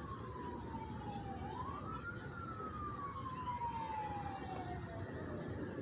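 Emergency vehicle siren wailing. Its pitch falls, rises again about a second and a half in, then drops slowly and steadily until the end. Under it is a steady low rumble of background noise.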